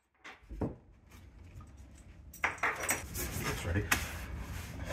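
Metal parts clinking and clattering as they are handled, a few soft knocks at first, then a busier run of sharp clinks from about halfway in.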